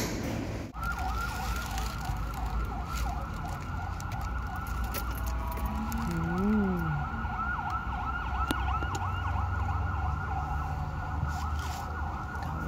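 Electronic siren in a fast yelp, its pitch sweeping up and down over and over, heard from inside a car over a low steady rumble of traffic. About halfway through, a short lower tone rises and falls once.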